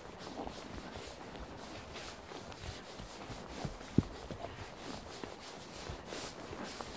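A horse walking on a grassy forest path: soft, irregular hoof footfalls with rustling, and one sharp knock about four seconds in.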